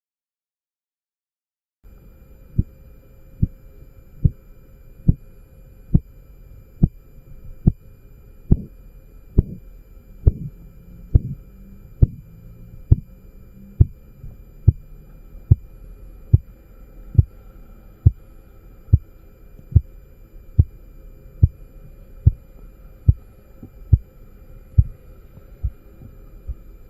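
Korotkoff sounds heard through a stethoscope as a blood-pressure cuff deflates: regular pulse taps about every 0.85 s over a steady hum. They begin faintly about two seconds in, grow louder, then fade and stop near the end. The first tap marks the systolic pressure and the point where they disappear marks the diastolic.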